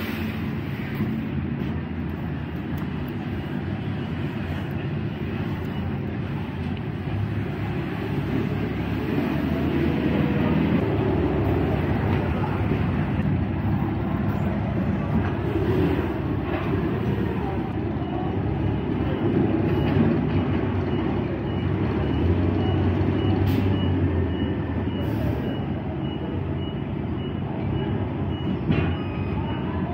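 Steady low mechanical rumble with some engine-like low hum. A faint, high, evenly repeating beep joins it about two-thirds of the way through.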